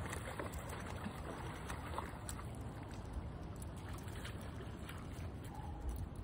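Shallow river water flowing, with a low rumble of wind on the microphone. Light splashes come in the first couple of seconds as a hooked smallmouth bass thrashes at the surface.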